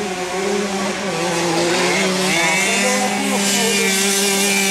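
Several small 50cc two-stroke motocross bike engines running hard, their pitch wavering with the throttle. From about two seconds in, one gets louder and higher as the bike passes close.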